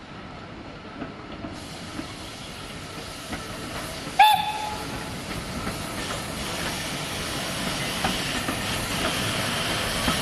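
Steam locomotive, the LSWR Beattie 2-4-0 well tank 30587, gives one short whistle blast about four seconds in, then its steam hiss and running noise grow steadily louder as it draws near hauling its coaches.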